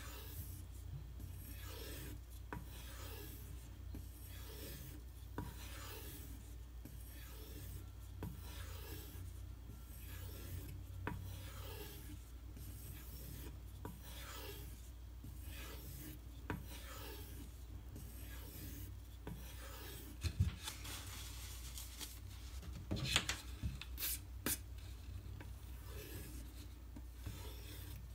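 Knife blade being stropped on a hard, thin leather strop loaded with CBN emulsion: a steady run of light rubbing strokes, about one and a half a second. A few sharp clicks and knocks come about three-quarters of the way through.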